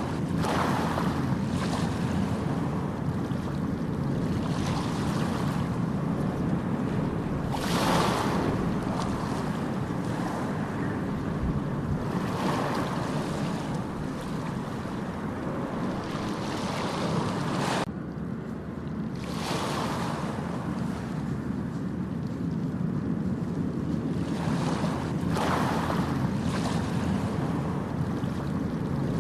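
Ocean surf on a beach: waves break and wash in every few seconds over a steady low rumble of water. The sound drops suddenly for a moment about two-thirds of the way through.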